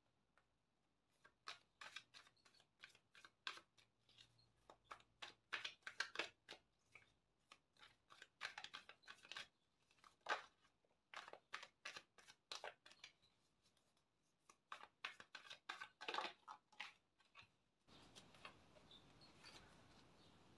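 A tarot deck being shuffled by hand: quick, irregular clicks and rustles of the cards against each other, with a short pause midway. The shuffling stops near the end, leaving faint room tone.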